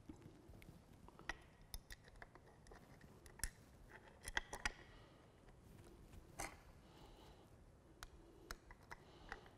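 Faint, scattered clicks and taps of metal suspension bracket plates and bolts being handled and fitted, with a cluster of louder clicks around the middle. Near the end a hex key is worked into a bolt head.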